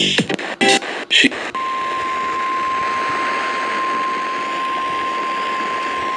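A few short bursts of sound, then from about a second and a half in a single steady alert tone just above 1 kHz over background hiss. The tone is the NOAA Weather Radio 1050 Hz warning alarm tone, which announces an emergency alert about to be read.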